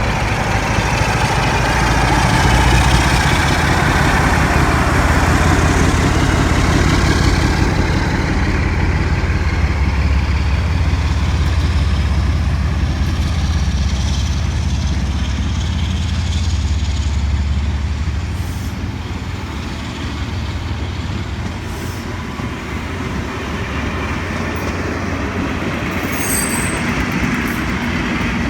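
A train running past with a steady, loud rumble and hiss that eases slightly about two-thirds of the way through.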